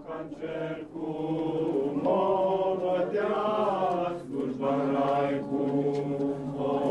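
A group of voices singing slowly together without accompaniment, holding long notes in a chant-like line: a Romanian Christmas carol (colindă).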